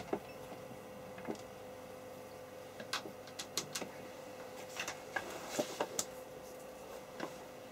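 Scattered light clicks and knocks of a BNC cable and connector being handled and plugged into the front-panel input of an oscilloscope, most of them in the middle of the stretch. A faint steady hum runs underneath.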